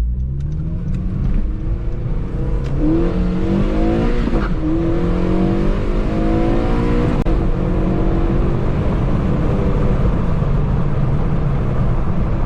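Four-cylinder car engine on its stock exhaust, accelerating hard through the gears. The revs climb, drop at upshifts about four and a half and seven seconds in, then hold steady.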